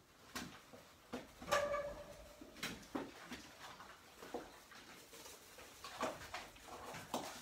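Puppies playing and mouthing: scattered small clicks and scuffles, with one short high-pitched squeal about a second and a half in.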